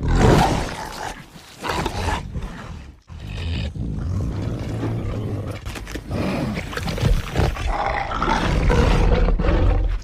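Film sound effects of a Carnotaurus roaring and growling, isolated from the soundtrack: a loud roar at the start, a second call that cuts off about three seconds in, then a long, low, rumbling growl that swells near the end.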